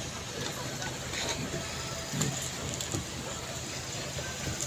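Low, steady hum of an idling boat engine under an even hiss of wind and water.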